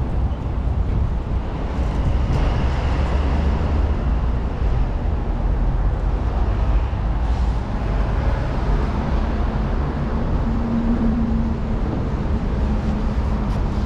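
Steady road-traffic rumble of passing vehicles. A low engine hum joins a few seconds in and grows strongest near the end.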